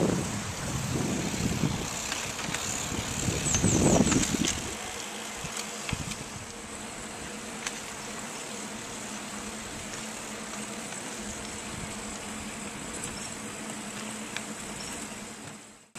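Wind and rolling noise on the microphone of a moving recumbent trike, with louder rumbling gusts over the first four seconds, then a steady quieter hiss. A short run of high chirps comes about three seconds in.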